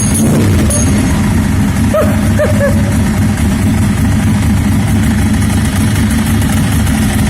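Car engine running at idle with a steady knock in it, the engine knock the owner is listening for.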